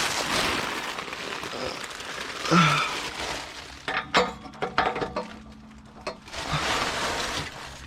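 A hand wrench working at a rusted, stuck exhaust bolt: scraping and rustling of metal and tools, with a quick run of sharp clicks about four seconds in.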